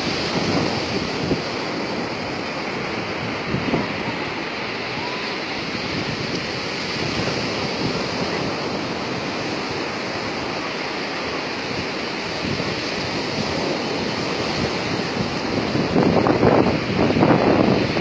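Sea surf washing onto a sand beach, mixed with wind buffeting the microphone; the noise swells louder near the end.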